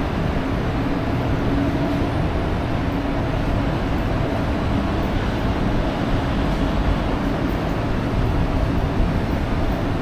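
Steady low rumbling background noise with a faint hum in it, unchanging throughout.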